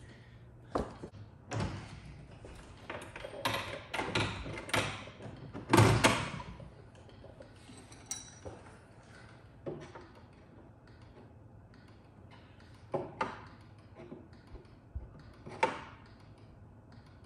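Scattered knocks and clunks of a pinball lamp panel being handled and fitted into the machine's backbox, the loudest thud about six seconds in.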